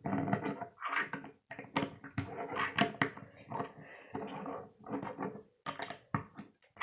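Plastic Lego bricks being handled and pressed together: a run of clicks, knocks and rubbing as the parts are fitted.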